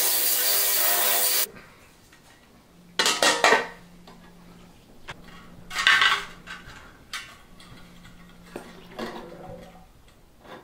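Benchtop ultrasonic cleaner running with a loud, high buzzing hiss, cutting off suddenly about a second and a half in. Then small metal carburettor parts clink and rattle against the cleaner's stainless wire basket as they are lifted out, loudest about three seconds in and again about six seconds in.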